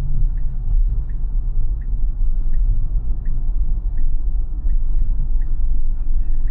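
Tesla Model Y turn-signal indicator ticking evenly, about three ticks every two seconds, while the car signals left to change lanes. Underneath is a steady low rumble of road noise inside the cabin.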